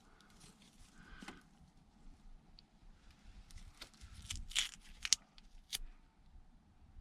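Faint handling noises of the glue being applied to the patch: soft rustling, then a run of sharp clicks and taps from about three and a half to six seconds in.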